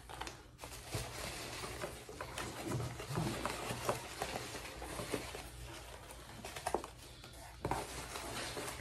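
Cardboard box flaps and packing material rustling and crinkling as items are lifted out of a shipping box, with scattered light clicks and taps.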